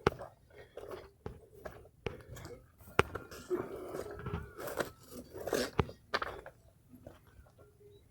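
Irregular crunching and crackling of leaves and twigs, with three sharp snaps, as someone pushes through dense brush.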